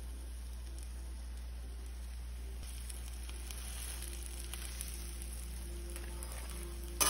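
Chickpea-batter vegetable fritters sizzling in olive oil in a frying pan. The crackle grows louder about three seconds in as more batter goes into the pan with a spatula, and a short sharp click comes near the end.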